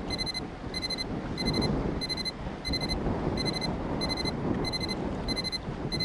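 Electronic timer alarm beeping ten times in quick, even succession, about one and a half beeps a second, each a short high-pitched digital beep. The ten beeps signal that ten minutes have elapsed.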